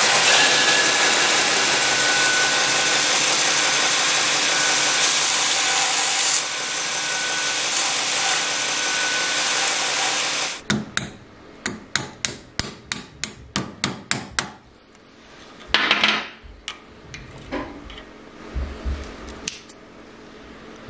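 A belt grinder runs and grinds steadily for about ten seconds, then cuts off suddenly. About a dozen quick hammer taps follow, roughly three a second, then a few scattered knocks: the brass pivot pin holding the razor together being worked out so it can be taken apart.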